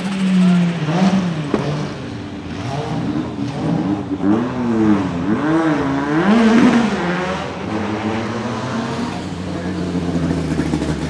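Audi 200 Quattro Trans-Am race car's turbocharged five-cylinder engine under hard driving, its pitch rising and falling several times as it accelerates and changes gear, with the quickest swings in the middle.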